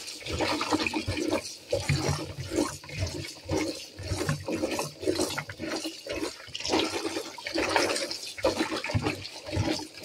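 Water sloshing and splashing in a plastic bowl as a hand swishes and rubs freshly harvested fingerling potatoes to wash off the soil, in irregular surges. A tap runs into the bowl near the end.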